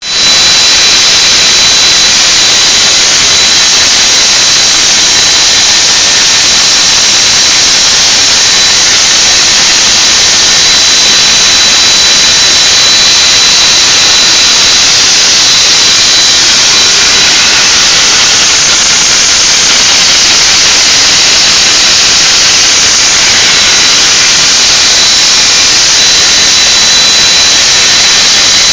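WEKA SR75 three-phase 7.5 kW diamond core drill motor turning a diamond core bit as it wet-drills a perforation hole into a concrete wall. It makes a loud, steady, high-pitched whine with one constant tone, unbroken throughout.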